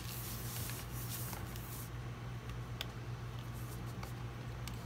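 Faint handling of a USB cable and a plastic LED light pad: soft rustling, with a couple of light clicks, the clearest about halfway through, over a steady low hum.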